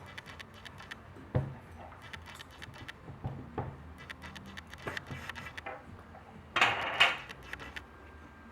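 A budgerigar coughing and spitting out seeds: scattered small clicks and taps, one louder knock about a second and a half in, and a short double rasp near the end.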